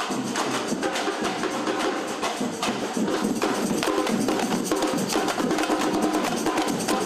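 Batucada drum group playing a fast, dense rhythm: deep bass drums under sharp, high tamborim cracks.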